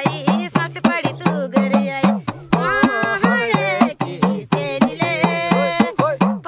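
Woman singing a Kumaoni jhoda-chanchari folk song over a steady, quick percussion beat of about three strokes a second. Her voice holds long, drawn-out notes in the second half.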